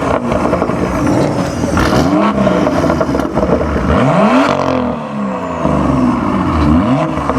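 Car engine revved up and let fall back three times, a couple of seconds apart, over a steady low engine idle.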